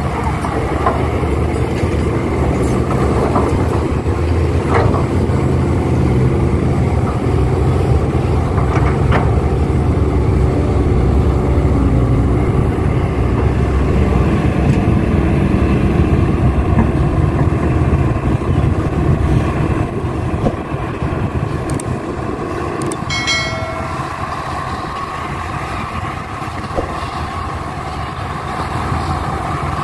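Diesel engines of an excavator and dump trucks running under load, a steady low rumble that swells through the middle and then eases off. A brief high-pitched tone sounds once, a little after two-thirds of the way through.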